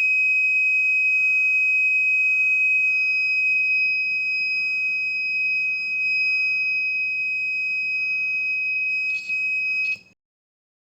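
Homemade security alarm circuit's buzzer sounding one continuous, steady, high-pitched tone. Near the end come a couple of brief clicks, and then the tone cuts off suddenly.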